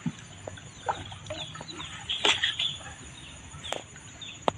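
Birds clucking and chirping, with many short high chirps repeating, broken by a few sharp knocks: one about two seconds in and two more near the end.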